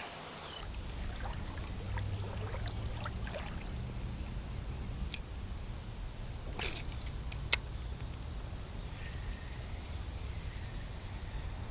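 Creek water running with a steady low rumble and two brief sharp ticks, one about midway and one a little later.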